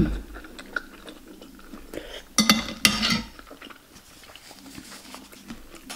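Close-up eating sounds: chewing a mouthful of meatball soup and fried wontons, with a fork and spoon clinking against the plate. A sharp thump at the start, then the loudest bursts come together about two and a half seconds in.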